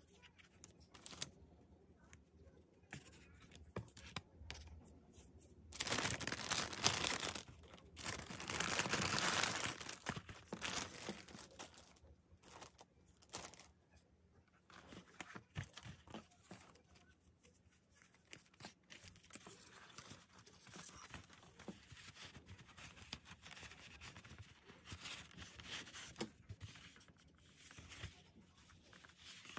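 Clear plastic packaging crinkling as it is handled and opened, with two louder stretches of crinkling about six and eight seconds in, then softer rustling as a canvas drawstring pouch is handled.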